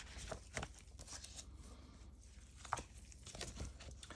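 Faint rustling and crinkling of paper banknotes being handled, with a couple of brief sharper paper sounds, about half a second in and again just under three seconds in.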